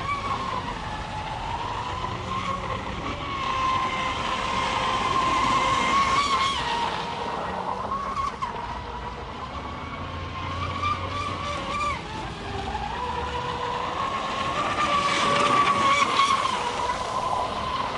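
Pro Boat Blackjack 42 8S brushless catamaran RC boat running fast, its electric motor giving a steady whine that wavers in pitch as the throttle changes. A rushing hiss swells twice, about six seconds in and again near the end, as the boat passes close.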